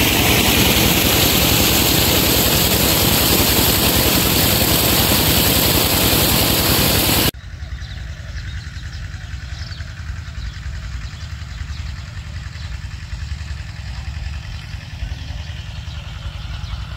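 Loud rush of water pouring from a pump's discharge pipe, with the pump engine running underneath. About seven seconds in it cuts off abruptly to the engine of the pond-draining pump running steadily, much quieter.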